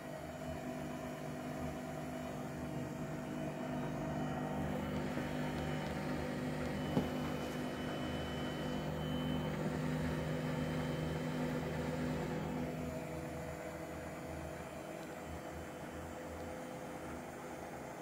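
Hotpoint Ariston AQ83D front-loading washing machine on its 800 rpm spin cycle: the drum and motor hum, growing louder as the spin builds, with one sharp click about 7 seconds in. About 13 seconds in the motor's hum cuts out and the sound falls quieter as the drum slows.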